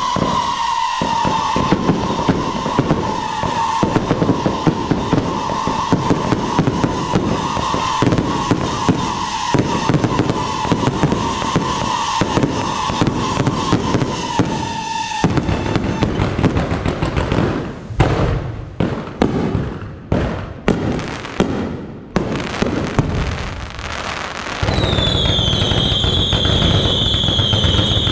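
Fireworks barrage: a long, steady, shrill whistle over dense crackling and popping for about fifteen seconds. Then comes a spell of separate bangs and crackles, and near the end a new loud barrage with a higher whistle that slowly falls in pitch.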